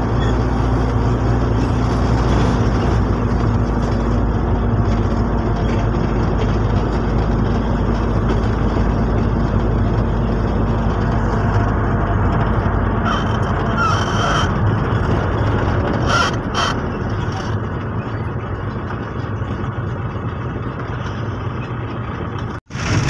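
Engine and road noise of a truck driving, heard from inside the cab: a steady low hum for the first dozen seconds that eases off and gets quieter after about 16 seconds as the truck slows. A few short rattles come through around 14 and 16 seconds in, and the sound cuts out suddenly just before the end.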